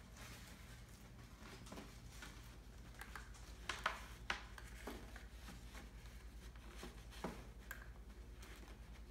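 Entlebucher puppies moving about: faint, scattered taps and scrapes of small paws and claws, with a few sharper taps about four seconds in, over a steady low hum.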